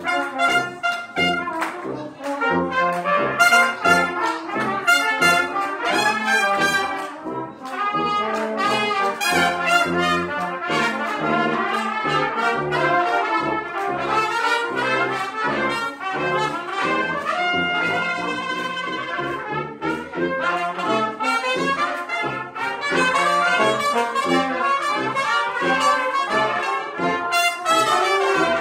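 Brass ensemble of trumpets, French horn, trombone and tuba playing a lively piece together. The tuba plays short, repeated bass notes under the trumpet lines.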